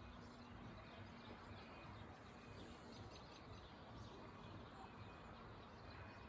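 Faint distant outdoor ambience over a town and river valley: a low, even background hum with a few faint bird chirps.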